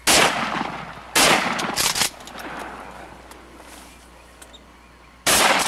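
Shotguns firing at ducks: two loud shots about a second apart, a couple of quieter reports just after, and another loud shot near the end.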